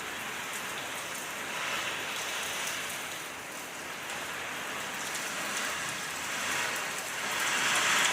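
Heavy rain pouring down in a steady hiss that swells louder twice, about two seconds in and near the end.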